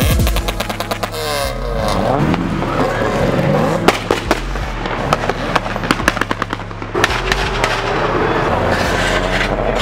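Modified cars driving past with engines revving, their pitch rising and falling. A rapid run of exhaust pops and crackles comes in the first second and a half, and more scattered pops follow later.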